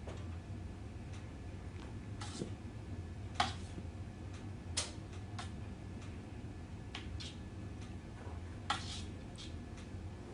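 Low steady hum of room tone with scattered faint clicks and taps, irregularly spaced, the sharpest about three and a half and eight and a half seconds in.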